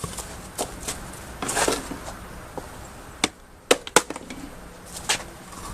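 A plastic Keurig K-cup coffee maker being struck: about six sharp, irregular knocks and cracks, the two loudest close together past the middle.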